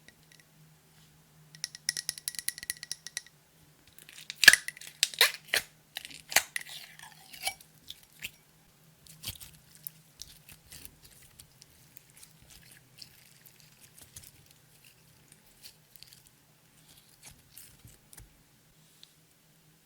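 Close-up handling of clear slime with makeup and glitter: a quick rattling run of clicks, then a cluster of loud sharp clicks and sticky crackles, easing into softer scattered clicks and crackles.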